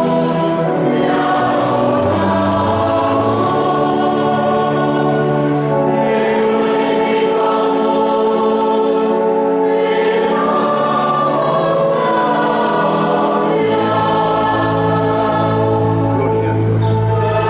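Children's choir singing in parts with a small orchestra accompanying, in long held chords that change every second or so, over a steady bass line.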